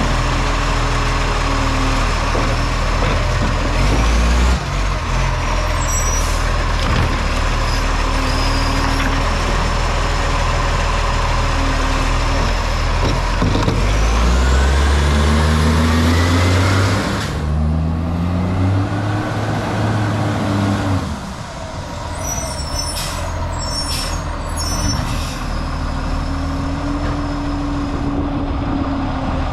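Garbage truck diesel engine running with an exhaust leak. The revs rise about halfway through and then fall away again.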